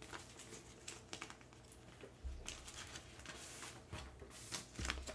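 Faint rustling and light clicks from handling a cardboard comic backing board on a wooden desk, with a few soft knocks about 2, 4 and 5 seconds in.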